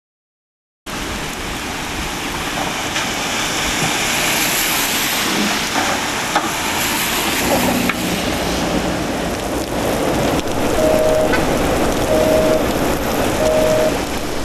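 Steady rain falling on a city street, starting about a second in. Near the end, a two-tone phone beep sounds three times, a little over a second apart.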